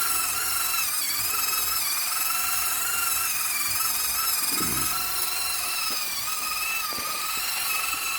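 Small electric gear motor of an RC-converted Bruder Mack concrete mixer truck turning its drum, a steady whine that wavers slightly in pitch, the drum loaded with floor-dry granules.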